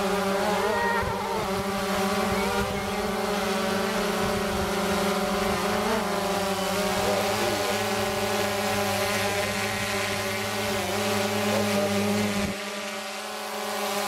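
DJI Phantom 2 Vision+ quadcopter hovering close by, its four propellers making a steady buzzing hum with only slight wavers in pitch. A low rumble beneath it cuts out near the end.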